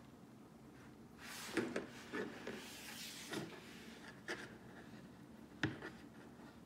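Handling noise from a Nest Cam and its plastic window-mount stand being moved about on a desk: a scraping rub for a couple of seconds and several light knocks and taps, the sharpest near the end.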